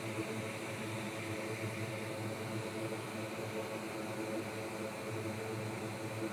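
Steady whir of a fan-driven bench unit with a low electrical hum underneath, running evenly without change.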